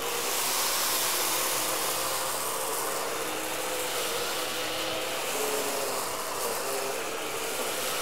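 Miele Triflex HX1 cordless stick vacuum running on its number three suction setting as it is pushed over low-pile carpet, picking up scattered rice. A steady motor hum with a rush of air.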